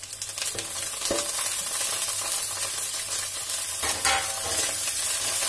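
Chopped fresh coriander leaves hitting hot oil in a kadhai of green chillies and curry leaves set off a dense sizzle. The water in the leaves is boiling off in the oil. A perforated skimmer stirring the tempering adds a few light knocks against the pan.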